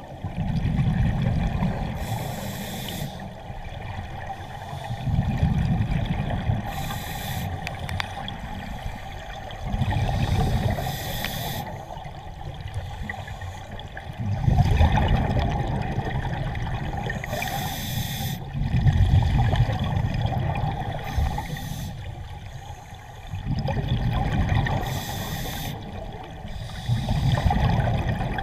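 Scuba regulator breathing heard underwater: a short hiss of each inhalation alternating with a longer bubbling rush of exhaled air, repeating about every four to five seconds.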